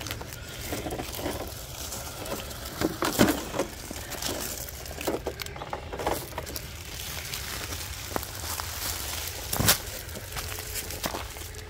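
Dry fallen leaves and loose gravel crunching and crackling in irregular bursts under a 1/10-scale RC crawler truck driving over them.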